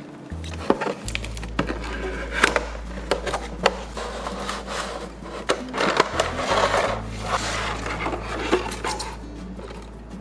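Hands unpacking a plastic toy horse figurine and its accessories: scattered clicks, taps and rustling of packaging, densest in the middle, over background music with a steady bass note.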